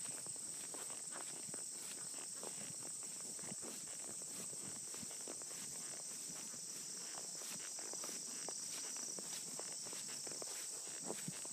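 A steady high-pitched insect chorus, with soft, irregular thuds and clicks of a horse's hooves and tack as it walks on grass.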